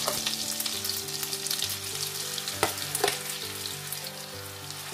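Marinated chicken pieces sizzling and crackling in hot melted butter as they are added to the pan, with a few light knocks near the start and again about two and a half to three seconds in.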